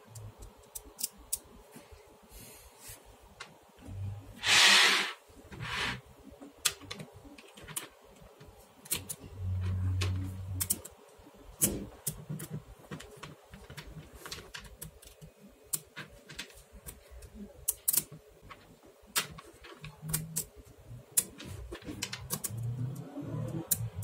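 Small magnetic balls clicking irregularly as they are snapped onto a ball-built wheel by hand, with a louder noise lasting about half a second about five seconds in.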